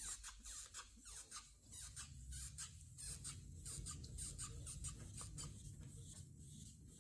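Power sander wet sanding a car hood's paint with fine-grit paper: a steady low hum, with many short squeaks and swishes of the wet paper on the paint.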